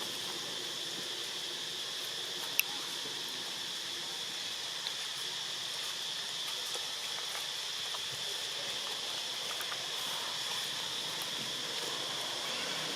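Steady insect drone, a constant high-pitched buzz, with one sharp click about two and a half seconds in.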